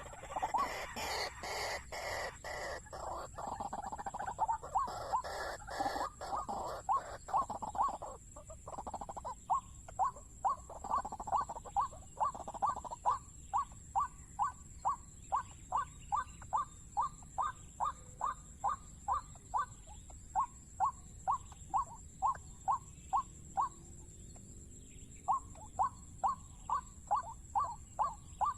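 Waterhen calling: a dense run of overlapping calls, then a long series of short, even calls at about two a second, pausing briefly near the end before starting again.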